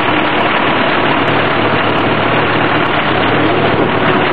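1951 Farmall M tractor's four-cylinder engine running steadily as the tractor is moved off.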